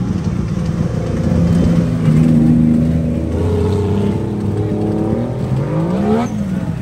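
Race car engines running at idle with throttle blips. About six seconds in, one engine revs up sharply and drops back.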